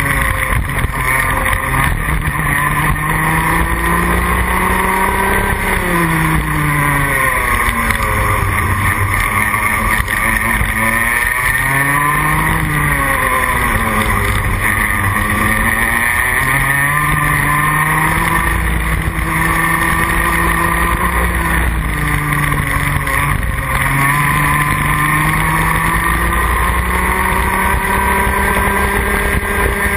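Rotax Max Junior 125 cc two-stroke kart engine at racing speed, heard from onboard: the revs climb in long rising whines and drop sharply several times as the kart brakes into corners and accelerates out again.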